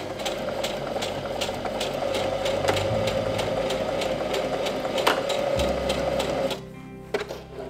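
Sewing machine running steadily as it stitches a seam in polyester tent fabric, with a regular ticking of the needle, then stopping abruptly near the end.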